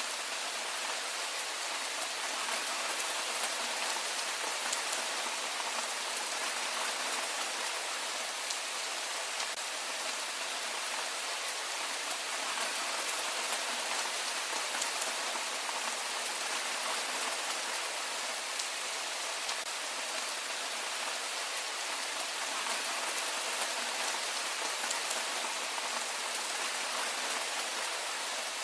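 Heavy rain falling steadily: a dense, even hiss with faint scattered drop ticks and no low rumble.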